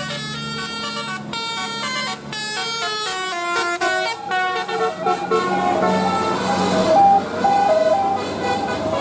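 Bus 'telolet' horns, multi-tone musical air horns, playing quick melodies of stepped notes: a high run of notes first, then a lower tune from about halfway through, over growing traffic noise.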